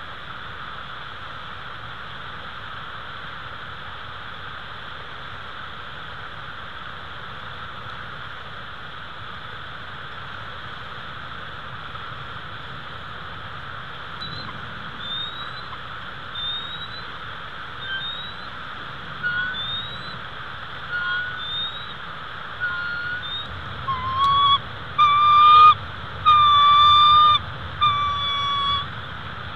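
Bald eagles calling at the nest over a steady hiss. A string of short, upward-sliding high chirps starts about halfway through and comes faster and louder, building into loud, repeated high-pitched calls near the end as the mate arrives at the nest.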